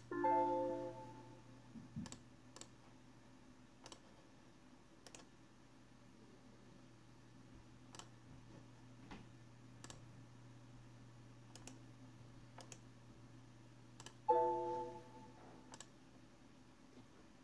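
Computer mouse clicking every second or two, with a short electronic chime of several notes played at once from the computer's speakers twice, once at the start and again near the end.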